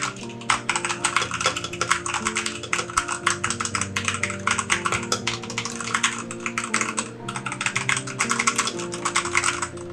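Fast, continuous typing on a Redragon K167 60% mechanical keyboard with Redragon red linear switches, a dense patter of key clicks. Background music plays underneath.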